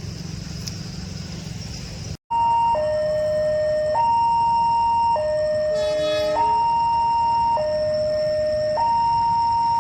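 Electronic two-tone warning siren at a railway level crossing, alternating between a higher and a lower tone about every 1.2 s, warning of an approaching train. It starts about two seconds in, after a stretch of low rumble and a high insect hum.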